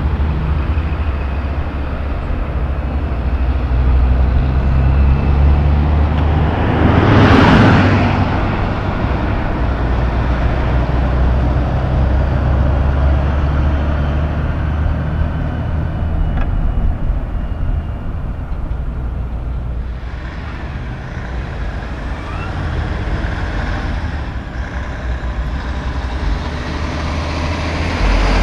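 Car-carrier semi truck's diesel engine running with a steady low hum as the loaded rig moves slowly along the road. A vehicle passes close by about seven seconds in.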